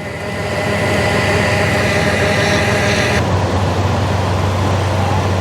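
Rice combine harvester running with its unloading boom out, the auger feeding grain out for bagging. About three seconds in, the high hiss drops away and a steady low hum takes over.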